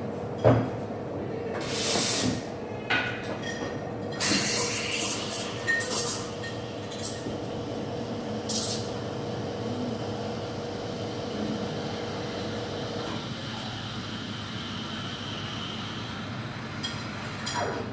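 Espresso machine steam wand hissing as milk is steamed in a metal pitcher, with several short sharp blasts of steam in the first half. A thin high whine runs through the last few seconds.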